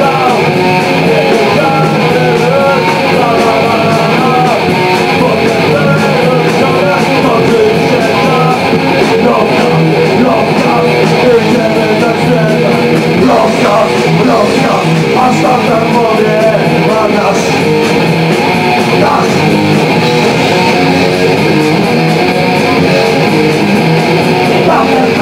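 Punk rock band playing live: loud electric guitar over drums, steady and without a break.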